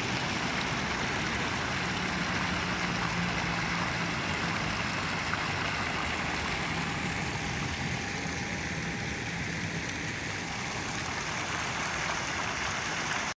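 Fountain jets splashing steadily back into a round stone basin, a continuous watery hiss, with a faint low hum underneath.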